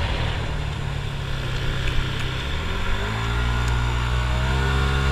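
A 150 cc motor scooter running along the road, with wind rushing over the microphone. About two and a half seconds in, the engine note rises as it speeds up, then holds steady.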